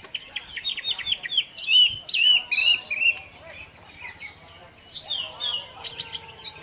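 Orange-headed thrush (anis merah) in full, continuous 'teler' song: a fast, varied string of sharp chirps, whistled slurs and quick trills, with a short quieter lull partway through.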